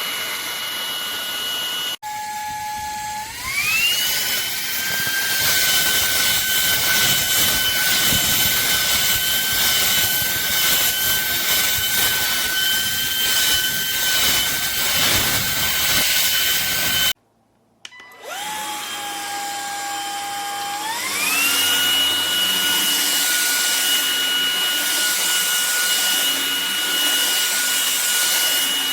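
MONSGA MV3 cordless stick vacuum running: a steady high motor whine over airflow hiss. About three seconds in, the motor speeds up to a higher pitch. The sound then cuts out for about a second, comes back at the lower speed, and speeds up again about a third of the way from the end.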